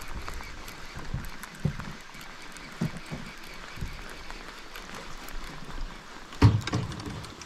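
Heavy rain falling on the water and the boat as a steady hiss, with a few soft low thumps. About six and a half seconds in there is one loud knock, the loudest sound.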